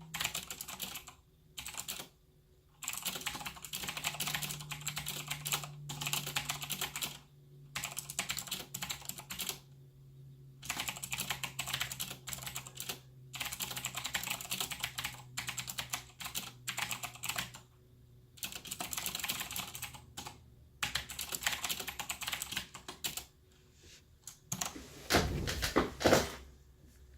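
Typing on a Corsair K70 mechanical keyboard with clicky Cherry MX Blue switches, each fitted with a rubber O-ring to damp the bottom-out: rapid runs of key clicks broken by short pauses, with a louder clatter near the end.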